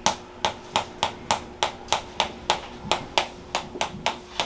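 Steady, rhythmic tapping on a patient's shoulders and neck during chiropractic treatment, at about three sharp taps a second. It is done to loosen the shoulder and neck joints before an adjustment.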